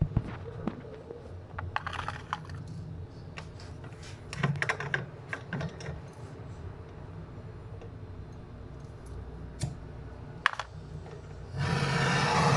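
Scattered light clicks, taps and clinks of small hard objects being handled, over a low steady hum. About a second before the end, a loud steady rushing noise starts.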